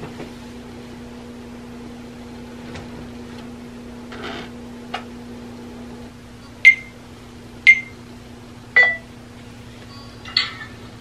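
Three short electronic beeps about a second apart, each starting with a click, from the ring light's controls as it is adjusted. A steady low electrical hum runs underneath.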